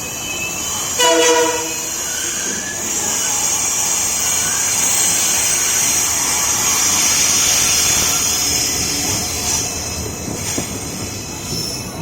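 WDP4 diesel locomotive's horn sounds one short blast about a second in, then a long high-pitched screech of the train's wheels and brakes as the express slows into the station, over the rumble of the passing train.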